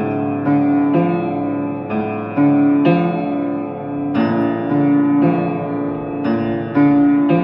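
Instrumental music: a keyboard melody of struck notes, each ringing and fading before the next.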